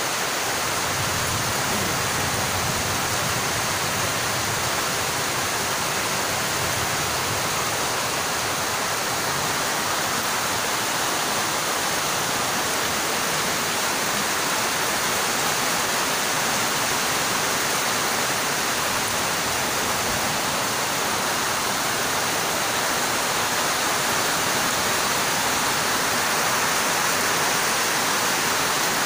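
Heavy rain falling steadily, an even, unbroken hiss of downpour.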